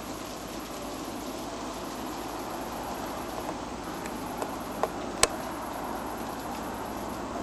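Steady outdoor background hiss, broken about four to five seconds in by three short sharp clicks in quick succession, each louder than the last.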